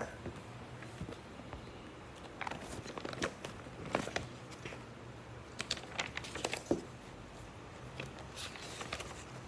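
Sheets of paper rustling and crinkling as they are handled and leafed through, in scattered soft crackles and clicks.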